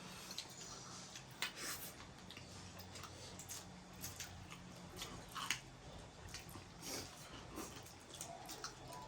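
Faint eating sounds: someone chewing noodles, with scattered small clicks and smacks.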